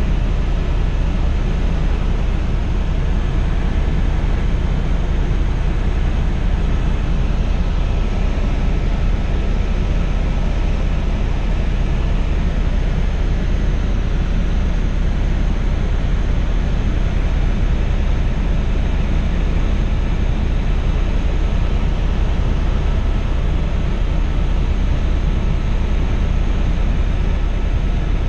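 Helicopter in flight heard from inside the cabin: a loud, steady drone of engine and rotor, heaviest in the low end, with a few faint steady whining tones above it.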